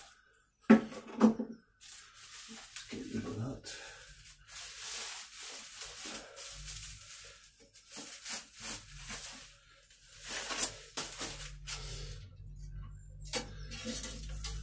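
Plastic bubble wrap crinkling and rustling on and off as a bare-rooted bald cypress sapling is pulled out of its packaging, with two sharp clicks from pruning secateurs about a second in.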